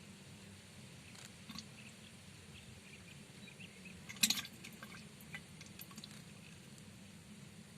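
Faint small water drips and clicks over a low steady background hum, with one louder, sharper sound just after four seconds.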